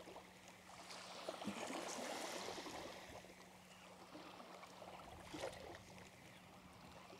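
Faint small waves lapping at the shoreline, swelling a little about a second in and easing off again.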